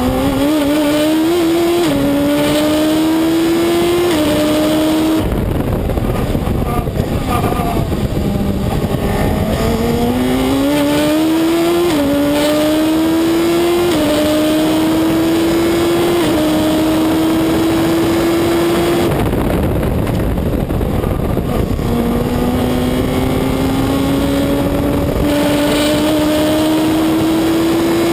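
Reynard Inverter sports racing car's engine heard onboard at full throttle, its pitch climbing and dropping in quick steps as it upshifts through the gears. Twice the engine comes off the throttle for several seconds, then pulls up through the gears again.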